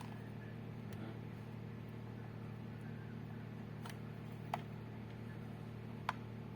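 Steady low electrical hum, with a few short sharp clicks about four and six seconds in.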